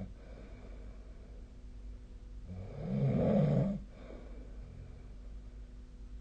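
A sleeping person snoring: one loud snore about halfway through, lasting just over a second, with quieter breathing before and after.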